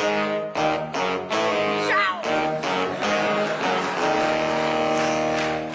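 Saxophone ensemble playing short, punchy chords, then one held chord that cuts off sharply near the end. There is a brief wavering high note about two seconds in.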